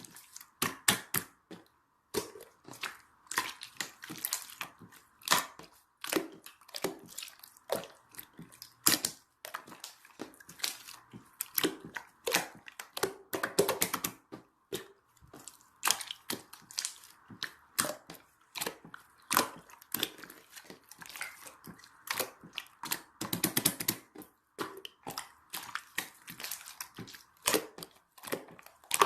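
Close-up crunching and crackling, many small irregular clicks one after another, with a few louder bursts, the densest around the middle and about three-quarters of the way through.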